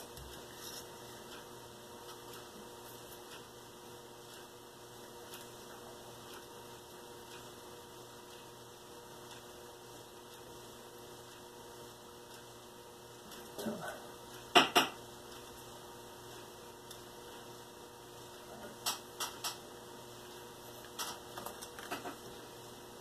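A steady electrical hum, with a few light clicks and knocks from a pencil and paper template being handled on a desk. They come in small clusters in the second half, the sharpest a quick double click about two-thirds of the way through.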